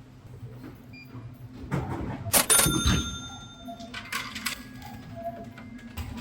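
A drink vending machine in use: coins clatter and ring like struck metal about two and a half seconds in, with more clattering a moment later and then a thin steady electronic tone.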